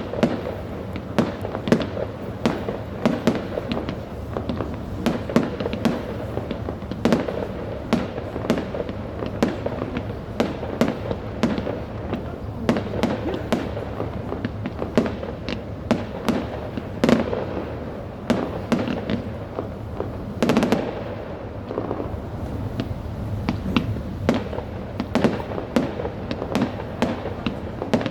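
Many fireworks and firecrackers going off at once, in dense, continuous popping and banging with overlapping sharp reports. A louder crackling burst comes about twenty seconds in.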